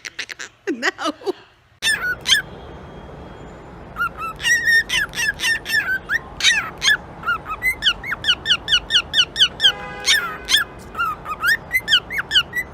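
A pet parrot giving a fast run of short, high-pitched chirps and squeaky whistles, several a second, each sweeping up or down in pitch.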